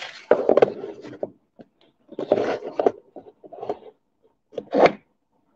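Four bursts of rubbing and scraping as the phone is pushed past a fabric curtain and the window frame.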